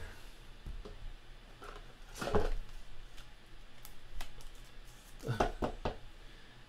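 Clear hard plastic card case being opened and closed around a trading card: quiet handling with a few sharp plastic clicks, one about two and a half seconds in and a quick cluster a little past five seconds.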